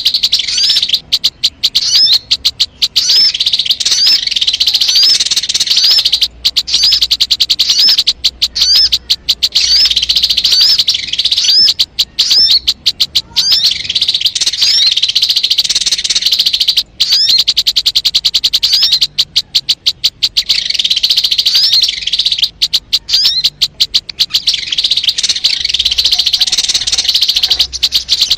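Sogon bird song played as a trapping lure: a fast, rattling, high-pitched trill studded with short upturned chirps, repeating almost without pause and broken only by brief gaps.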